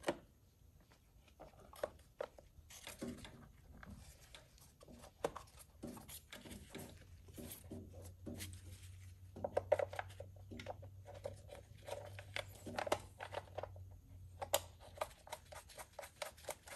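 Irregular light clicks, taps and rattles of an engine's lower timing cover and its small bolts being fitted and started by hand, with a few sharper knocks in the second half.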